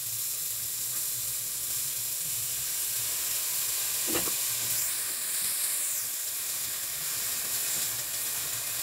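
Chopped onion sizzling in hot oil with garlic in a frying pan: a steady frying hiss, with a brief knock about four seconds in and a spatula stirring the onion near the end.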